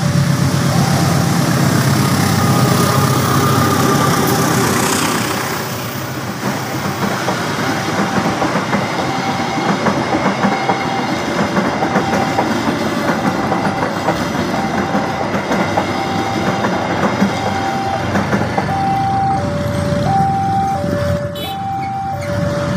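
Passenger train passing over a level crossing: the diesel-electric locomotive goes by first, then the carriages roll past with steady wheel-on-rail noise. Over it, a repeating electronic warning tone sounds about once a second, changing to an alternating two-note tone near the end.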